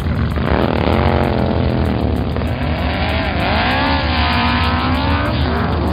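Race car engine sound effects. A steady low engine rumble runs under an engine revving whose pitch rises and falls in waves, starting about half a second in.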